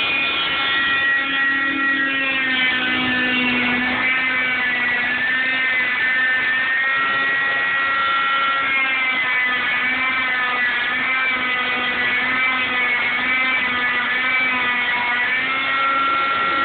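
Oscillating cast saw running with a steady whine while its blade cuts through an arm cast, the pitch wavering up and down as the blade is pressed into the cast.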